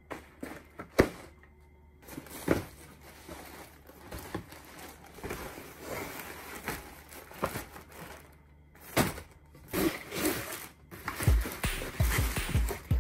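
A cardboard kit box handled and opened on a wooden table: sharp knocks and scraping of the box, then crinkling plastic parts bags, with denser low thumps near the end.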